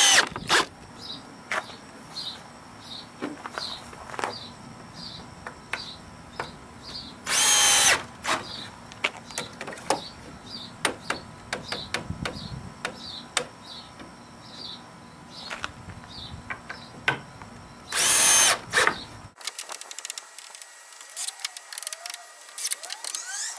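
A cordless drill drives screws into wooden deck balusters in three short runs about ten seconds apart, each a brief whine that falls in pitch. Between the runs are small clicks and knocks of the wood and level being handled, and a faint chirp repeating about twice a second.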